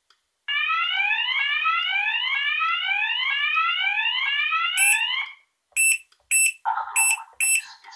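Wheelock fire-alarm speaker strobe sounding an alert tone of repeated rising sweeps for about five seconds. Then come sharp clicks about twice a second, and a synthesized voice starts a lockdown evacuation message through the small speaker near the end.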